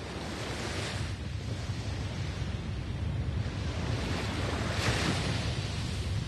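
Ocean waves breaking and washing on the shore, a steady surf with a deep rumble, swelling as it fades in and surging about a second in and again about five seconds in.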